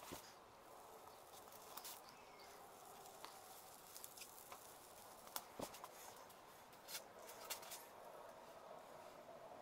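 Near silence with faint scattered clicks and taps from handling a foam gun and a disc of cured foam, with one slightly stronger knock a little past the middle.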